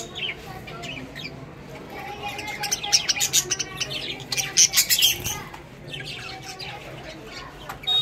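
A flock of caged budgerigars chirping and chattering, many short high calls overlapping, busiest in the middle few seconds.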